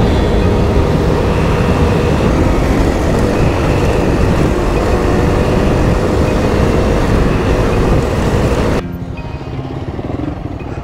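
Honda CRF dual-sport motorcycle riding along, its single-cylinder engine running under steady wind rush on the helmet-camera microphone; the noise drops suddenly near the end.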